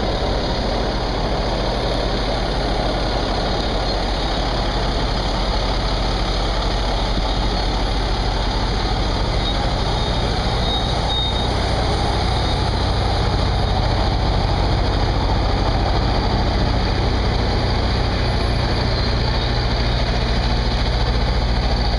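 Crack-sealing equipment running steadily: the drone of an engine under the rushing blast of a hot air lance drying concrete joints, getting a little louder about halfway through.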